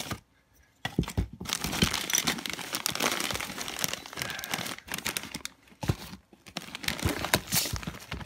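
Plastic bags crinkling and rustling as hands rummage in a storage bin and pull out a bag of gravel. The crackling is dense and continuous, with a brief lull about six seconds in.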